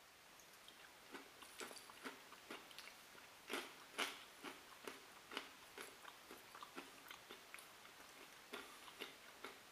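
A person chewing a crunchy mixed nut snack of peanuts, sesame sticks and pretzels: a steady run of faint crunches about two a second, starting about a second in.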